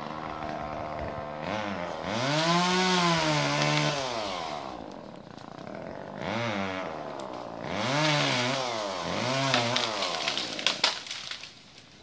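Chainsaw engine revving in bursts: it speeds up and holds high for a couple of seconds, drops back, blips briefly, then revs up and holds again before dying away near the end with a few sharp snaps.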